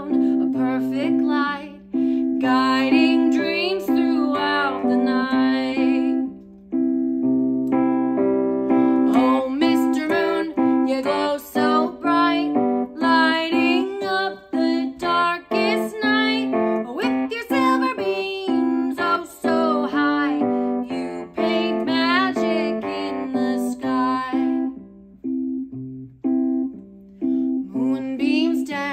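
A woman singing a children's song with piano accompaniment, in phrases separated by short piano-only gaps.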